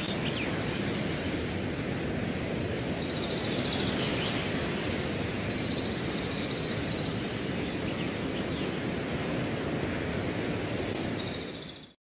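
Outdoor nature ambience: a steady rush of wind-like noise with thin, high chirping calls repeating through it and a louder trill about six seconds in. It fades out just before the end.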